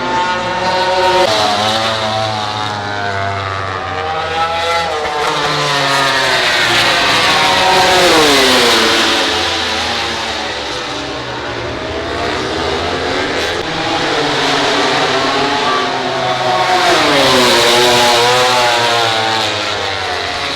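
MotoGP prototype racing motorcycles' 1000 cc four-cylinder engines at high revs, several bikes passing in succession, the engine pitch sweeping up through the gears and falling away as each goes by. The loudest pass-bys come about eight seconds in and again near the end.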